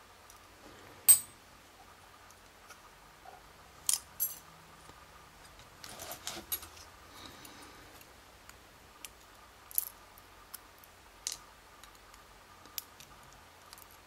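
Scattered light clicks and taps of steel tweezers handling small brass lock pins on a plastic pin tray and against a brass lock cylinder, with a brief rustle of handling about halfway through.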